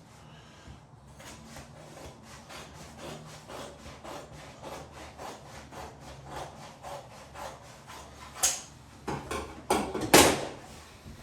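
Quick, even rubbing strokes on wallpaper, about four a second, then a few louder rustles and knocks near the end.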